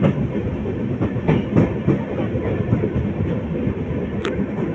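Indian Railways express coaches running close alongside on the next track: a steady rumble of wheels with irregular clickety-clack over the rail joints. A short, sharp metallic click stands out about four seconds in.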